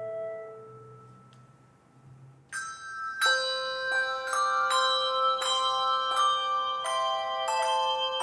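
Handbell choir: the last notes of one piece ring on and fade away, then about two and a half seconds in the bells start a new tune, one struck note after another, each ringing on under the next.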